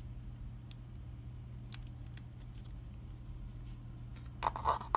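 Small clicks and scrapes of a plastic positioning jig being handled and pressed onto a metal lens mount ring, with a louder run of clicks and scraping near the end finishing in a sharp click, over a steady low hum.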